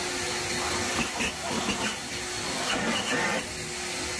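Leaf blower running steadily, its air stream making a loud even hiss over a faint steady hum.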